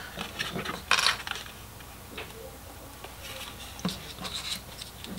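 Small handling noises of electrical wire and heat-shrink tubing being worked by hand: light scratching and rubbing with scattered small clicks, and one sharper scratch about a second in.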